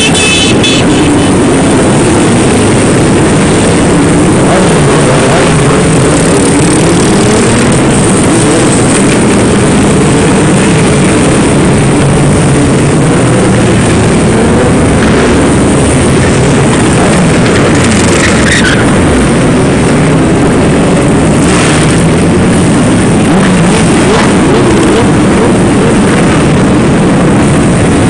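A stream of sport motorcycles passing close by, many engines revving up and down at once in a loud, continuous overlapping drone.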